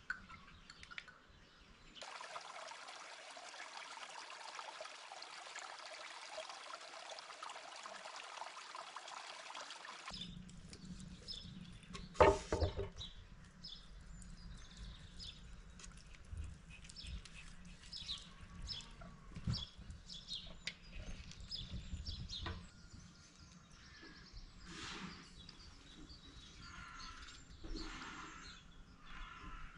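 Close handling sounds of food preparation: a steady hiss for about eight seconds, then scattered clicks and knocks of food and utensils against metal pans, with one loud knock about twelve seconds in. Birds chirp in the background.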